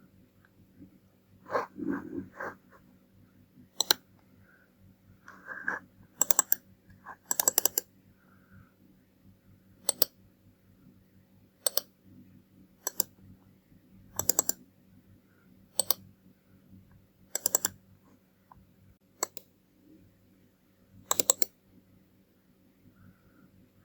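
Computer mouse buttons clicking: sharp single clicks and quick double clicks, one every second or two, over a steady low hum. A few duller knocks come in the first few seconds.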